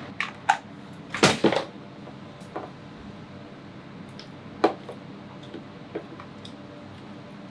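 Plastic food containers and a utensil being handled while eating: a louder clatter about a second in, then scattered light clicks and taps, over a low steady room hum.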